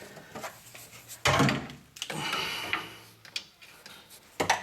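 Handling noise of a steel parking brake cable being worked through a truck frame: a loud knock and scrape about a second in, some rustling after it, and a couple of sharp clicks near the end.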